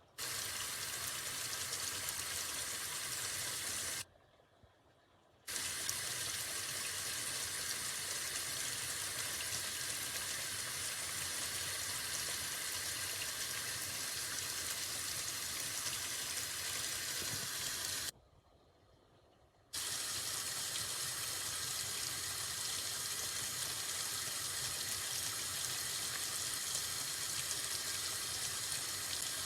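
A steady, even hiss of rushing noise, like running water, cut off abruptly twice for about a second and a half each time.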